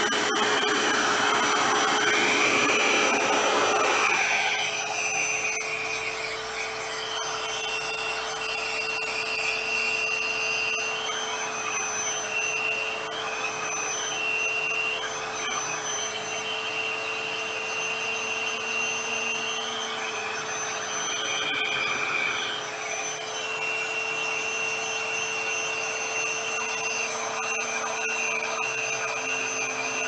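RevAir reverse-air hair dryer running, its base unit's suction fan drawing a section of hair into the wand: a steady rush of air over a constant hum, with a faint whistle that comes and goes and wavers in pitch. The airflow is louder for about the first four seconds, then settles. The base unit is set to 2 and the wand's heat to high.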